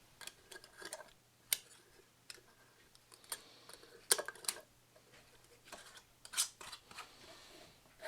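Metal screw band being fitted and turned by hand onto a glass canning jar: a run of light scrapes and sharp metallic clicks, a handful of them louder than the rest.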